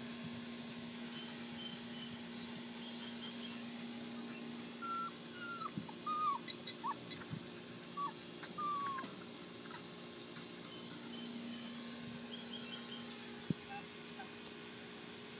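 Rhodesian Ridgeback puppy whining: a run of short, high-pitched whimpers, several falling in pitch, over a steady low hum.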